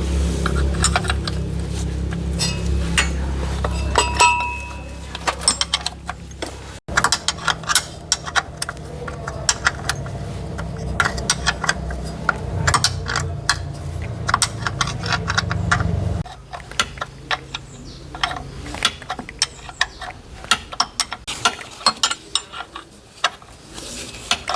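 Metal tools and parts clinking and tapping in quick, irregular clicks, over a steady low hum that drops away about 16 seconds in.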